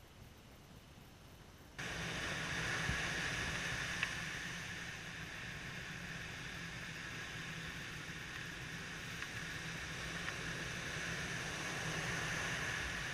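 Ocean surf: small waves breaking and washing up a sandy beach in a steady rush of water, starting suddenly about two seconds in after a near-quiet opening.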